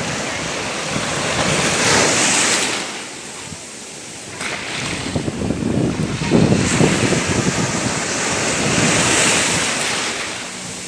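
Ocean waves breaking and washing on a shore, swelling and receding. After a brief lull, a wave comes in suddenly a little over four seconds in and is the loudest part. Another swells near the end, then fades.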